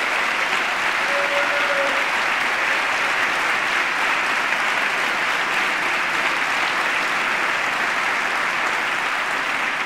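Large audience applauding steadily, a dense, sustained round of clapping.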